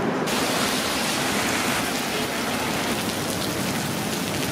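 Heavy rain pouring down, a dense, steady hiss that cuts in abruptly just after the start.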